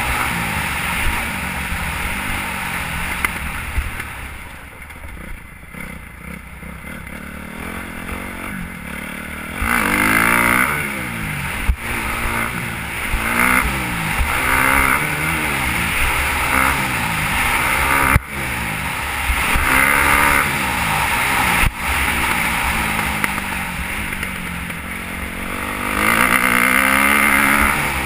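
Motocross dirt bike engine, ridden hard around a track with wind rush on the microphone: it eases off for a few seconds, then revs up and down in repeated rising and falling surges between corners and jumps, with a few sharp knocks.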